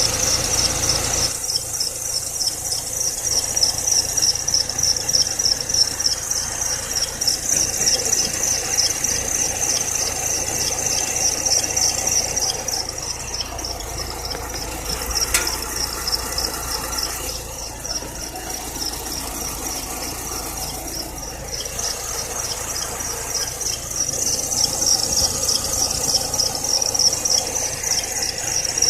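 Chevrolet Niva accessory drive belt whistling with the engine running: a continuous high-pitched whistle that wavers rapidly, a little weaker around the middle, over a low engine hum. Re-tensioning the belt did not stop it and a new belt did, though the owner thinks the air-conditioning compressor may also have contributed.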